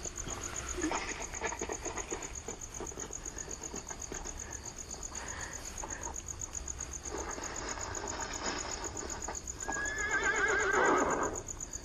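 A steady high insect trill runs throughout. About ten seconds in, a horse whinnies in one long, wavering call.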